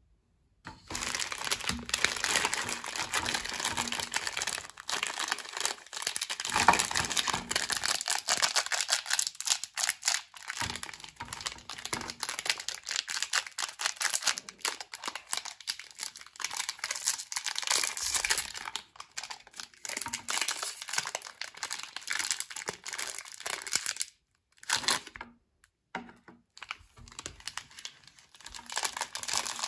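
Plastic wrappers of muesli bars crinkling and tearing as they are opened by hand, a long run of crackles with two short breaks near the end.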